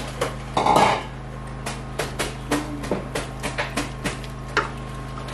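Wooden spatula stirring soup in a large pot, knocking and scraping against the pot in irregular clicks, a few a second, with one louder clatter just under a second in. A steady low hum runs underneath.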